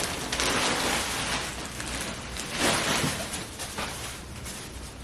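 Plastic packaging crinkling and rustling as it is handled and unwrapped, swelling several times and loudest about three seconds in, then dying down near the end.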